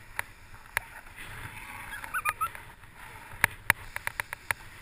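Fat bike riding over snow: a low rumble, a few short squeaks about two seconds in, then a quick irregular run of sharp clicks near the end.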